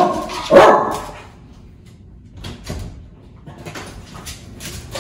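A dog barks once, loudly, about half a second in, excited at a closed door as someone arrives home. Light scratching and clicking of paws at the door and on the tile floor follow.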